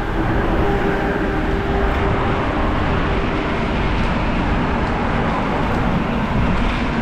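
Wind rushing over the microphone of a camera on a moving bicycle, mixed with road traffic noise, with a faint steady hum through the first half.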